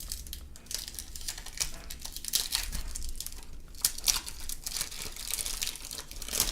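A baseball card pack's wrapper being crinkled and torn open, an irregular run of sharp crackles.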